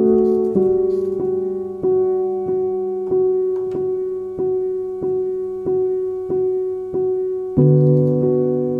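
Background piano music: one chord struck again and again at a slow, even pulse, with a lower bass note coming in near the end.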